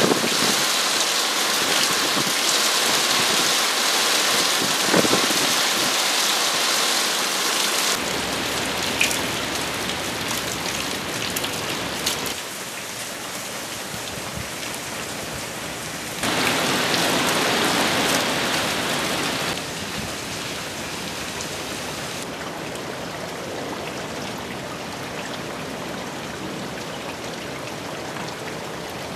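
Heavy rain falling steadily, with water pouring from a roof drain spout: a tropical-storm downpour. The rain noise drops and rises abruptly several times, louder in the first eight seconds and again between about 16 and 20 seconds.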